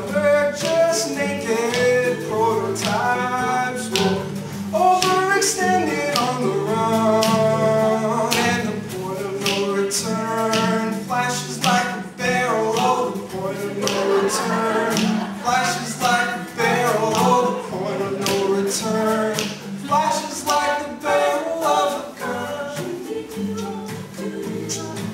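A live folk song: several voices singing together over acoustic guitar, with percussive taps keeping the beat.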